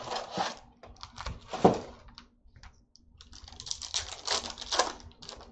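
Plastic trading-card pack wrapper crinkling and tearing as it is ripped open by hand, in short crackly spells with a sharp crackle about a second and a half in, a brief lull, then denser crinkling in the second half.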